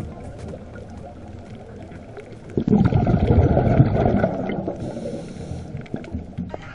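Underwater camera sound of a scuba diver's exhaled bubbles rumbling, with faint crackling behind. The bubbling gets loud about two and a half seconds in and fades away over the last couple of seconds.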